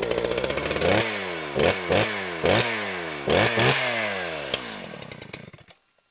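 A small gasoline engine revved in about six quick blips, its pitch falling away after each one, then slowing down and stopping near the end.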